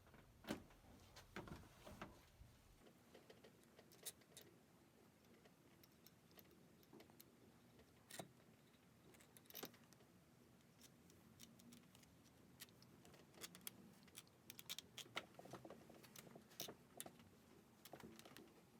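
Near silence broken by scattered faint clicks and light taps, irregular, with a few louder single clicks.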